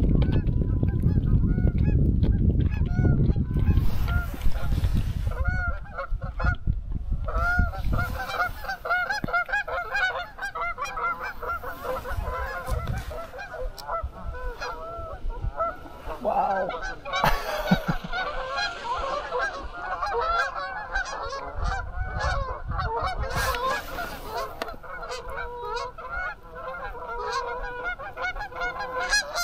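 A flock of Canada geese honking in flight, many calls overlapping, building from about four seconds in and going on throughout. A low rumble sits under the first few seconds.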